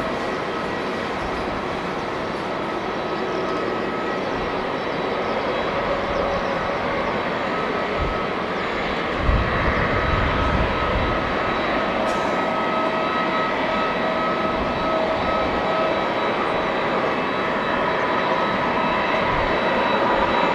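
Jet airliner engines running steadily: a rushing hiss with a thin steady whine, slowly growing a little louder. A few low bumps come about halfway through.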